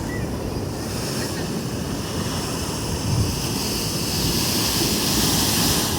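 Black Sea surf washing onto the shore while strong wind buffets the microphone with a low rumble; the hiss of the surf swells near the end.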